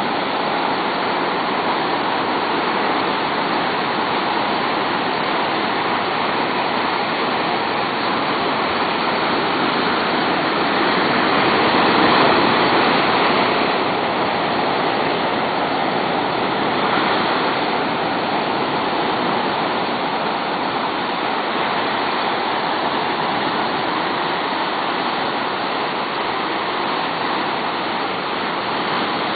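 Ocean surf washing steadily onto the shore, with a louder wave surging about twelve seconds in.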